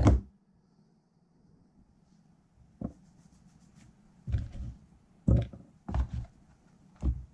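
Small electronics parts and a small white box handled on a silicone workbench mat. A handful of short knocks and clatters come several seconds apart, with quiet room tone between them.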